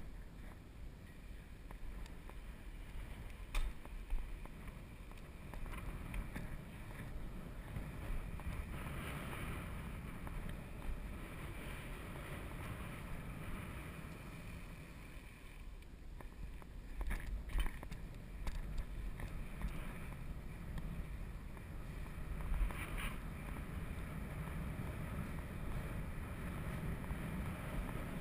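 Wind rushing over the microphone and the rumble of tyres on asphalt from a bicycle being ridden, with a few short sharp knocks, a couple of them close together, about three seconds in, around the middle and near the end.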